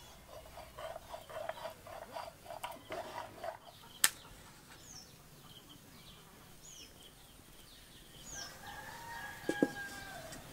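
A stone muller rubs back and forth over mint chutney on a stone grinding slab (sil-nora) in quick strokes, then a sharp knock about four seconds in. After that a small bird repeats short high chirps about once a second. Near the end a rooster crows with one held call and a metal wok clanks onto the clay stove.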